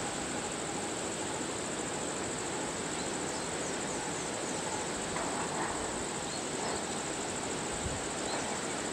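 Steady high-pitched insect drone over a constant outdoor hiss, with a few faint bird chirps and brief rustling of foliage from about five seconds in.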